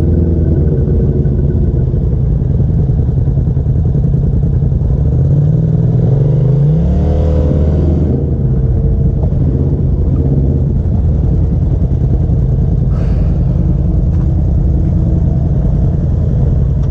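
Polaris RZR Turbo S side-by-side engine running under way, its pitch rising as it speeds up about six seconds in, then holding steady with a little clatter.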